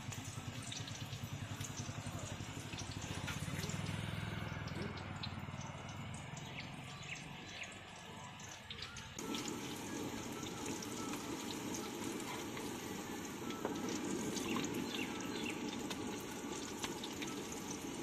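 Vegetable pakoras deep-frying in a large wok of hot oil: a steady sizzle with many small crackling pops. The sound turns fuller and louder about nine seconds in.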